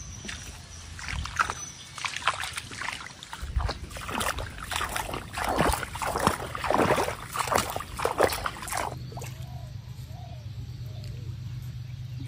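Irregular splashing and sloshing of pond water as a hooked climbing perch is pulled in and landed. The splashing stops abruptly about nine seconds in, leaving a low steady hum.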